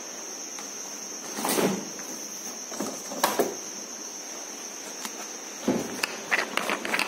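A few knocks and clatters, the clearest about one and a half and three seconds in, then soft footsteps and handling clicks near the end, over a steady high-pitched hiss.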